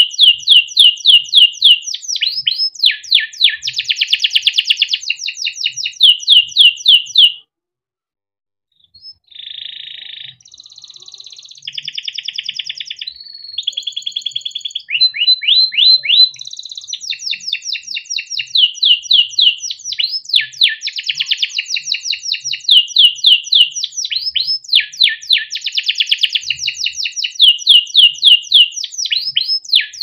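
Male domestic canary singing a long song of fast rolling trills. It breaks off briefly about seven seconds in, sings softer buzzy and rolling phrases, then goes back to loud rapid trills from about halfway through.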